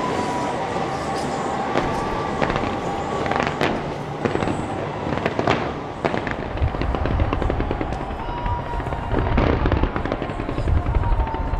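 Fireworks going off: a string of sharp bangs and crackles, with deeper booms joining from about six seconds in.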